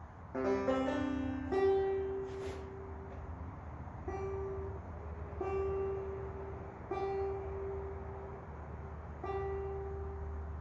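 Clawhammer banjo starting to play about half a second in: a strummed chord, then single plucked notes every second or so over a ringing held string. A steady low hum runs underneath.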